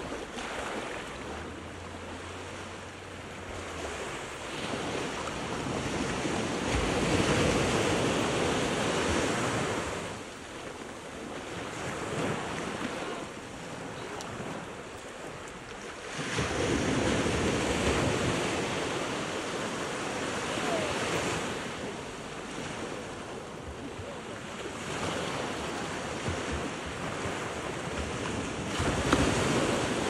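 Small Atlantic Ocean waves breaking and washing in over rocks at the shoreline, the surf swelling and fading as each wave comes in.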